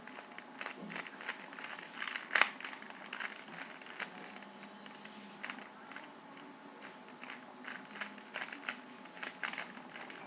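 Plastic Rubik's Cube being turned by hand: irregular clicks and rattles of its layers, with one louder click about two and a half seconds in.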